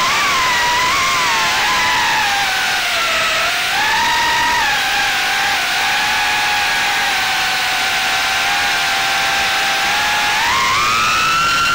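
FPV racing quadcopter's brushless motors and propellers whining steadily in forward flight. The pitch rises and falls gently with the throttle, then climbs steeply near the end as the throttle is pushed up, and drops abruptly at the very end.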